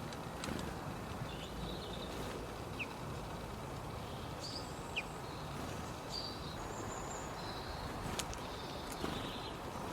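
Steady background noise with faint, brief high-pitched bird chirps scattered through it, a few every couple of seconds.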